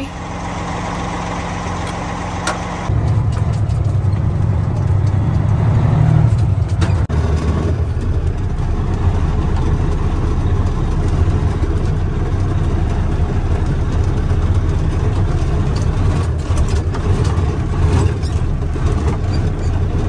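Truck engine running, heard from inside the cab while the truck drives. The engine sound steps up clearly louder about three seconds in and then holds steady.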